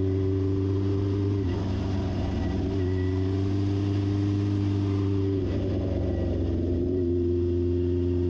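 1973 Honda CB750's air-cooled inline four-cylinder engine running steadily under way at a held pitch. About a second and a half in, and again about five and a half seconds in, the note wavers and roughens briefly before settling back.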